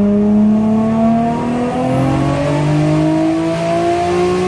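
Nissan RB26 straight-six in an R34 Skyline GT-R pulling hard under boost, its note rising steadily as the revs climb from about 4,000 to 7,000 rpm, heard from inside the cabin.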